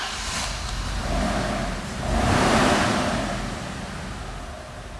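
Audi A6 C5's 2.4-litre V6 engine running just after starting, swelling louder for a couple of seconds and then settling to a steadier idle. It runs rough, which the mechanic puts down to the cylinders being flooded with petrol from long cranking.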